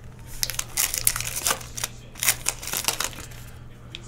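Foil wrapper of a baseball card pack crinkling and crackling as it is torn open and pulled off the cards. It is a quick run of sharp crackles that stops after about three seconds.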